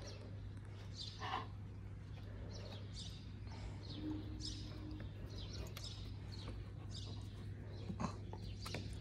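Small birds chirping repeatedly: many short, high chirps that sweep downward in pitch, scattered all through, over a steady low hum.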